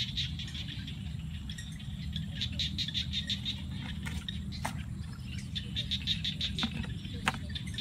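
A few sharp clicks and rattles from a wire-mesh crab trap being handled, over a steady low rumble and rapid high-pitched chirping in repeated runs.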